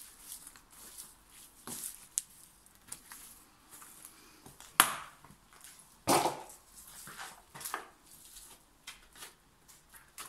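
Footsteps crunching over debris and a crumbling floor, with irregular creaks and clicks, a sharp crack about five seconds in and a louder crunch a second later.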